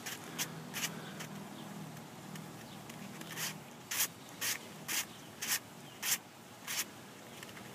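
Hand-turned 3D-printed Bubbloid122 twisty puzzle: plastic pieces rub and slide as the layers are turned. Light clicks come twice at first, then about two a second in the second half.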